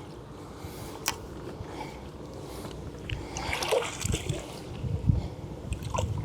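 Water splashing and sloshing, with a few knocks and low thuds in the second half, as a freshly landed carp is handled in the landing net.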